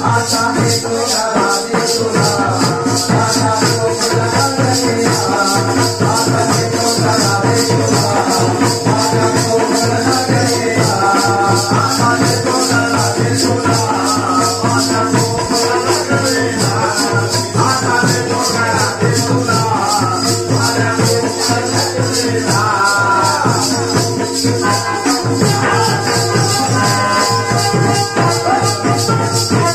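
Live devotional folk song: a male voice singing a wavering melody over a fast, steady jingling percussion beat, with steady held notes underneath.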